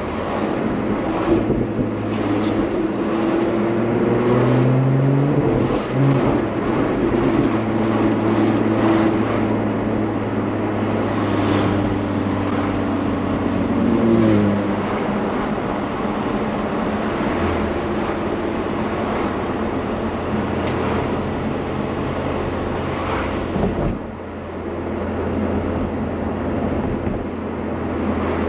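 Lotus Emira's supercharged V6 heard from inside the cabin on a light-throttle drive: the engine note rises and breaks at gear changes, about six seconds in and again near fourteen seconds, then holds steady while cruising with road noise, easing off near the 24-second mark.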